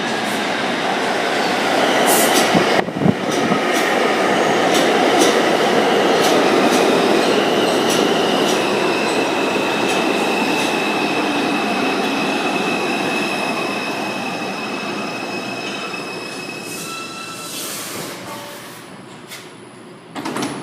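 R142 subway train running into the station and braking to a stop: a rumble with clicking over the rail joints that builds and then slowly dies away, and steady high wheel squeal as it slows. A short hiss comes near the end.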